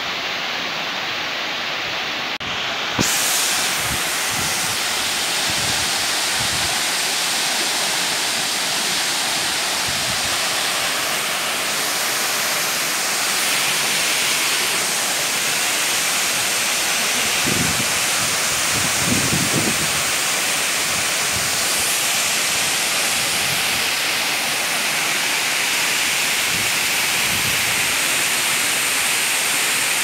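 Waterfall pouring down a rock face into a plunge pool: a steady rush of falling water that gets louder and brighter about three seconds in.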